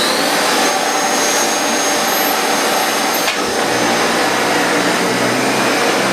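Dyson Cinetic Big Ball Animal upright vacuum running steadily on carpet with freshly fitted brush bars. A click a little over three seconds in comes as the handle is tipped back and the motorised brush bar comes on, and it keeps running smoothly, the way it is supposed to sound.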